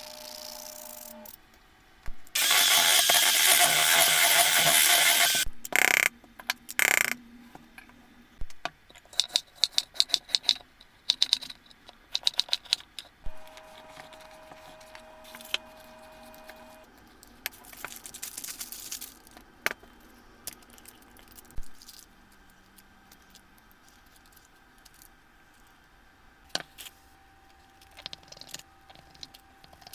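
Kitchen handling sounds: utensils and dishes clinking, rattling and scraping in quick, irregular clicks, with a loud stretch of noise early on lasting about three seconds.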